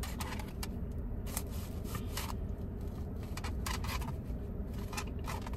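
Steady low rumble inside a car, with scattered light clicks and rustles of handling.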